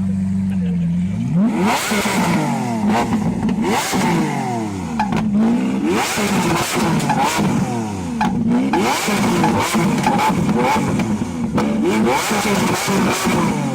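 A vehicle engine with a loud exhaust idles steadily, then from about a second in is revved hard again and again, its pitch sweeping up and down, with sharp crackles and pops between the revs.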